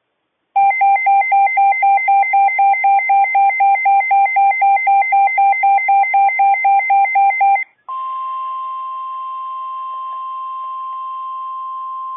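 Rapid electronic alert beeping, about four beeps a second for about seven seconds, then a steady single tone: the NOAA Weather Radio 1050 Hz warning alarm tone, which signals that a warning message follows.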